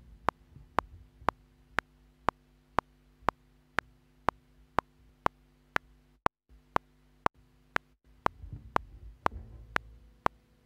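Metronome click ticking steadily at about two ticks a second (around 120 beats a minute), over a low steady hum. From about eight seconds in, faint low rumbling sounds under the clicks.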